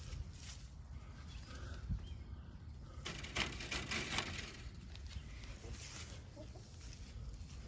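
Chickens clucking softly in a coop, with a burst of wing flapping lasting about a second, starting about three seconds in.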